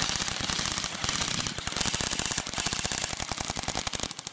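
Airsoft guns firing on full auto: a fast, continuous rattle of shots with brief pauses, cutting off suddenly near the end.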